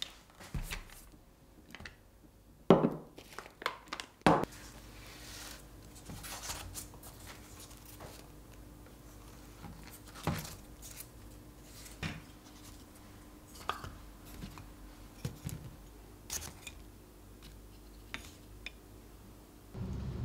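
Woven water-hyacinth baskets being handled and set down on a wooden table: scattered creaks, rustles and light clicks, with two louder knocks a few seconds in as things are put down, and a packet crinkling.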